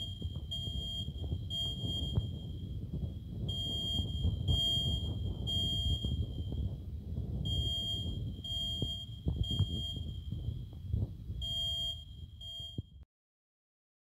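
Fire alarm sounding a high, piercing beep, repeated in groups of about three with a short pause between groups, over a low background rumble. It cuts off suddenly near the end.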